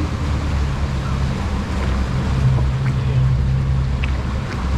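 Boat engine running steadily with a low, even hum, under wind and water noise.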